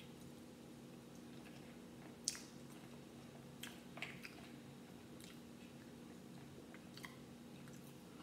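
Someone eating with her fingers: faint chewing with a few short, sharp clicks and crackles from the food being picked apart, over a steady low hum.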